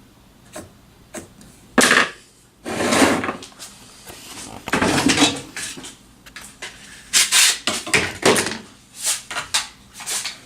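Wooden pieces and tools being handled on a workbench: a series of knocks and clacks, with a few longer scraping, rattling stretches.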